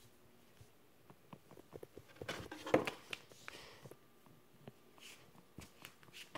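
Faint, scattered taps and clicks of feet slipping into flip-flops and shifting on a tile floor, with a louder knock near the middle.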